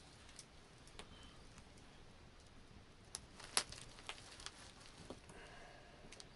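Faint, scattered clicks and taps of leather being handled and pierced with an awl, the sharpest click about three and a half seconds in.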